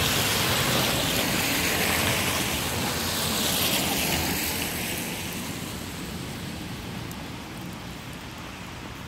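Road vehicles passing close on a slushy, snow-covered road, their tyres hissing through the wet slush. The noise swells for the first few seconds, then fades away over the last half.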